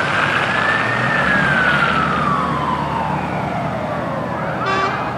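Fire truck siren sounding a slow wail: one sweep rising for about a second, then falling slowly over the next three seconds. A short, sharp blast comes near the end. Low engine rumble runs underneath.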